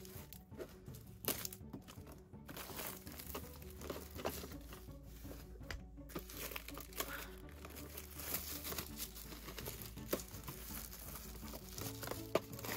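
Clear plastic film wrap crinkling in many quick crackles as it is pulled off a plastic display case and tray, with soft background music underneath.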